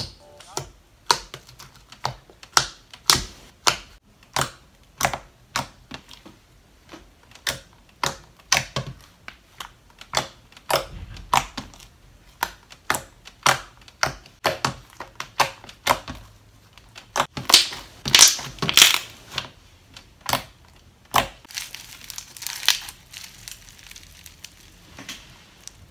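Glossy clicky slime being pressed and squished on a table, giving a string of sharp wet clicks and pops, about one or two a second. Near the end, crunchy floam packed with foam beads crackles as it is squeezed in the hands.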